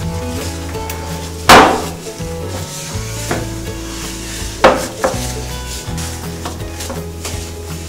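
Background music with held chords, over a plastic toilet seat being wiped and handled: two loud sharp knocks, about a second and a half in and again near five seconds, the first as the seat is raised.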